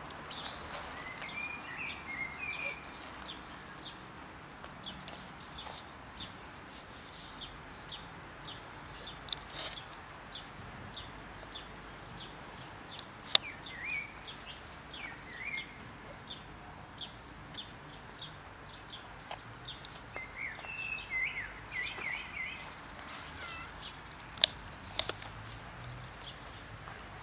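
Small birds chirping again and again over a steady outdoor background hiss, with short gliding calls in a few clusters. Three sharp clicks stand out, one about halfway through and two close together near the end.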